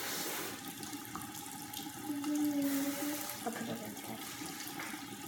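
A tap running into a bathroom sink: a steady hiss of water.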